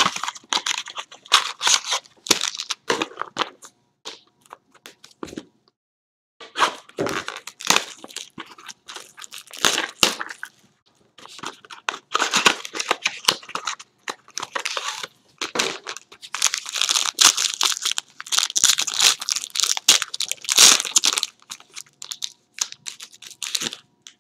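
Card box packaging and wrappers being torn open and crinkled by hand: irregular crackling and rustling, with short pauses.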